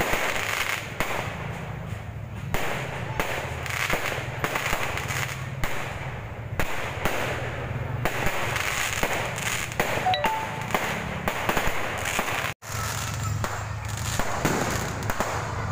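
Aerial fireworks launching and bursting overhead: a rapid, continuous run of bangs and crackles. The sound drops out for an instant about twelve and a half seconds in.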